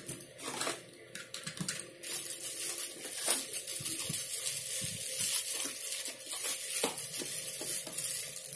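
Crinkling and rustling of small plastic bags and cardboard toy boxes being opened by hand, with scattered light clicks.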